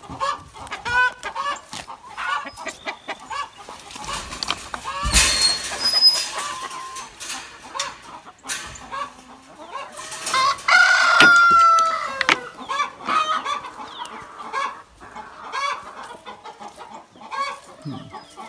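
A flock of chickens clucking, with a rooster crowing once past the middle, the loudest sound. A short burst of rustling noise comes about five seconds in.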